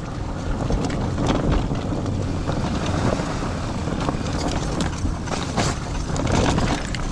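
Dog-drawn four-wheeled dryland cart rolling over a leaf-covered dirt trail: a steady low rumble of tyres and frame, with frequent small rattles and knocks, and wind buffeting the microphone.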